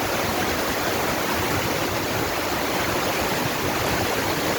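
Heavy rain pouring down in a dense, even hiss.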